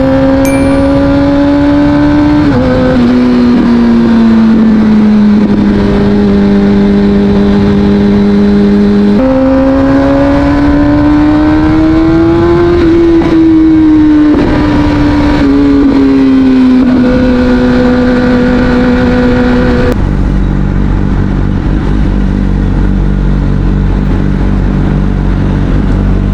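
Kawasaki Ninja ZX-6R inline-four engine running through an Akrapovic aftermarket exhaust while riding. The engine note holds steady for stretches, steps up or down abruptly a few times as gears change, rises and falls slowly with the throttle in the middle, and changes character sharply about twenty seconds in.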